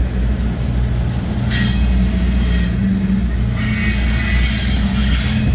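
Freight cars of a long mixed freight train rolling past: a steady low rumble of wheels on rail, with high metallic wheel squeal coming in twice, about one and a half seconds in and again from about three and a half seconds until shortly before the end.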